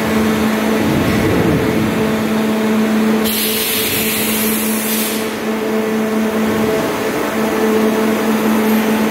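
Steady hum of a running machine motor with a constant low tone. About three seconds in, a burst of hiss lasts about two seconds and then cuts off.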